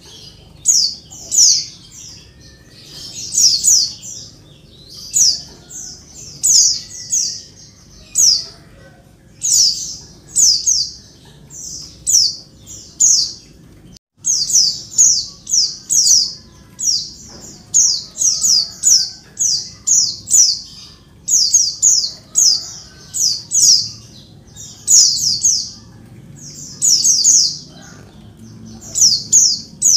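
Female white-eye (pleci) calling busily: quick clusters of two to four high, downward-slurred chirps, repeated every second or two. It is the kind of female call used to draw caged males into singing.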